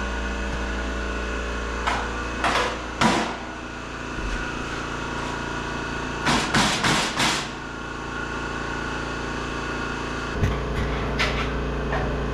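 Hammer blows on sheet-steel door-skin metal, a few sharp taps in scattered groups, over a steady shop hum.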